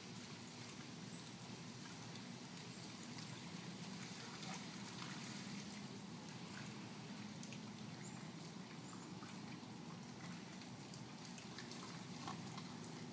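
Light, scattered splashing and trickling of shallow creek water over a steady low background hum.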